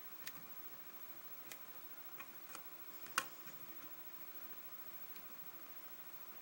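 Small, scattered metallic clicks of a hook pick and tension wrench working the pin stacks of a kick-cylinder pin-tumbler lock held in a false set, about six ticks in all, the sharpest about three seconds in.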